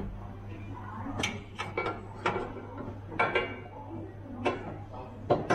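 Steel pry bar (jimmy bar) knocking and scraping against the slider bracket and chassis as the slider is levered forward: several irregular metallic clanks over a steady low hum.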